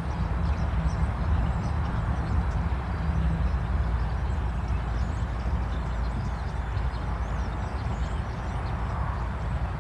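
Diesel locomotive running, a steady low engine drone over rumbling train noise.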